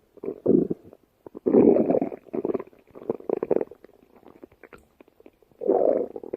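Stomach growling and gurgling in irregular bubbling bursts, loudest about a second and a half in and again near the end, with a quieter stretch in between.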